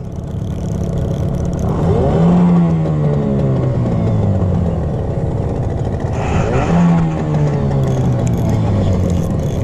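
Boat's outboard motor revved in neutral twice, each time the pitch climbing quickly and then winding down slowly toward idle.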